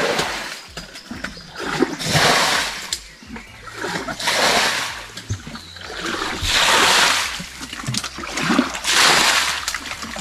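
Water being scooped and flung out of a shallow stream by hand, splashing in four heavy sweeps about every two seconds, each swelling and dying away: the stream is being bailed dry to catch prawns.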